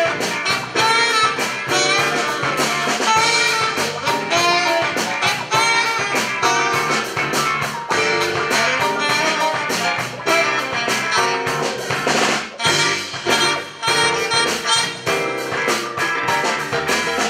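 Instrumental music with a steady, quick beat.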